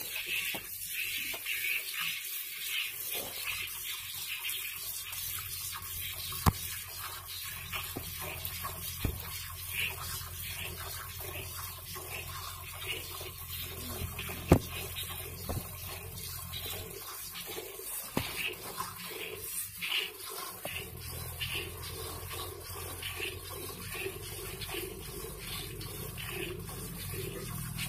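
Milk squirting from a cow's teats into a steel pail during hand milking: a rhythmic hiss of streams striking the milk already in the pail. A sharp click about halfway through.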